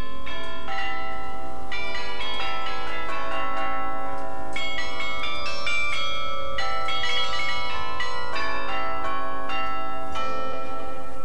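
Carillon bells ringing out a tune: many bells struck in quick succession at several pitches, each note ringing on over the next, with a brief pause partway through.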